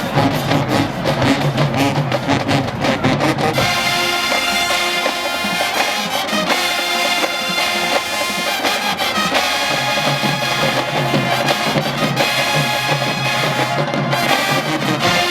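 Marching band playing: drums and bass pound for the first few seconds, then the brass takes over with loud held chords.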